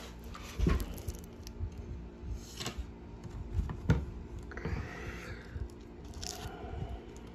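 Handling noise as a mesh fencing mask is moved about on a wooden table, with a few dull knocks and rustles. The strongest knocks come about a second in and about four seconds in, and then there is fiddling as a rivet is pushed through a Velcro strap.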